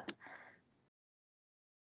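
Near silence: a faint trace fades out in the first half second, then the sound cuts to dead silence.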